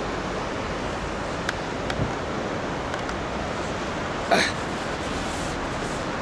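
Steady rushing of the swollen Tronto river flowing under a bridge. A short, sharp sound cuts in a little over four seconds in.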